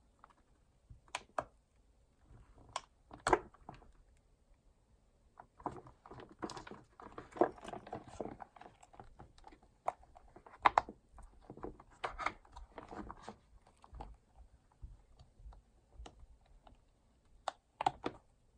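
Irregular sharp clicks and taps with bursts of rubbing and rustling in between: small hard objects being handled on a work surface.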